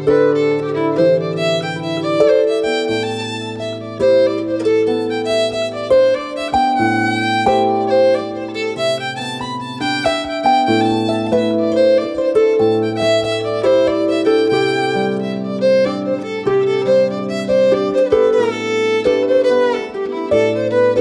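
Fiddle playing a traditional tune over held low accompaniment chords, with tenor guitar in the band.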